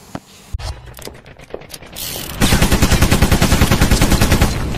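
Intro sound effect of rapid machine-gun fire: scattered sharp cracks at first, then about two and a half seconds in a loud, fast, even burst of about nine shots a second that runs for roughly two seconds.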